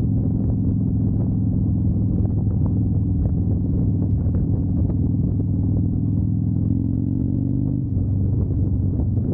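Harley-Davidson Fat Bob's air-cooled V-twin engine running at a steady cruise, heard from on board the moving motorcycle. About eight seconds in it dips briefly, then its pitch climbs slowly.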